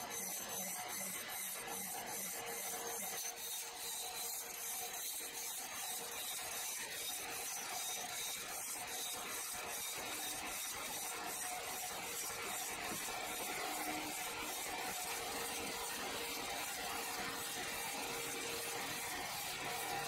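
Horizontal band sawmill blade running and cutting through a large log, a steady rasping hiss with a fast, even ticking in it.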